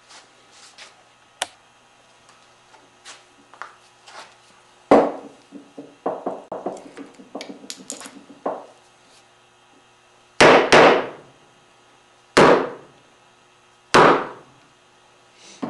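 Chisel chopping waste from a dovetail socket in curly maple, struck with a mallet. There are a handful of hard, sharp blows, one about five seconds in and the rest in the second half, with lighter taps and chips being levered loose between them.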